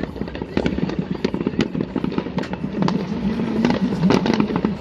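Fireworks going off in quick, irregular succession: many sharp cracks and bangs close together.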